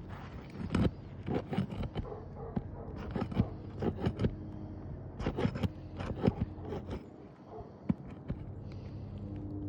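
Irregular scrapes, clicks and knocks of hand tools working on asphalt roof shingles, with a low steady hum beneath.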